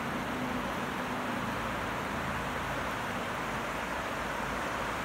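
River water rushing steadily over shallow riffles. A low hum fades out in the first second or so.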